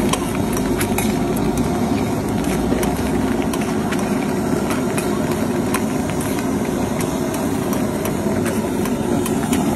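Halved boiled eggs frying in foaming oil on a large shallow street-stall pan, a metal spatula stirring and scraping them with scattered light clicks, over a steady low rumble.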